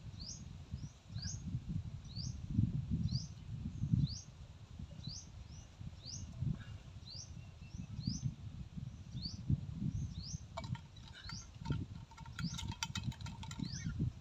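Wind gusting on the microphone in low rumbling surges, over an animal call: a short rising chirp repeated about twice a second. About ten seconds in, a spell of rapid clicking and a thin steady tone joins for a few seconds.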